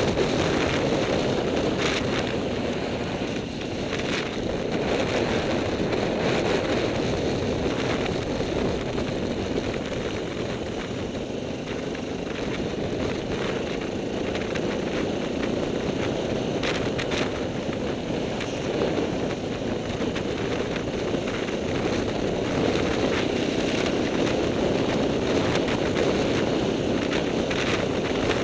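Motorcycle riding on an open road, heard through a bike-mounted camera: a steady rush of wind buffeting the microphone, with engine and road noise underneath. A few short knocks come through now and then.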